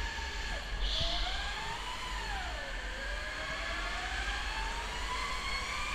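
Electric go-kart motor whining from the driver's seat, its pitch dropping as the kart slows for a corner about two seconds in, then climbing steadily as it accelerates again, over a low rumble. A brief high squeak about a second in.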